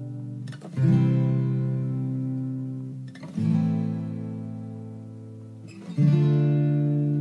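Background music: acoustic guitar chords strummed and left to ring, with a new chord about every two and a half seconds, three in all.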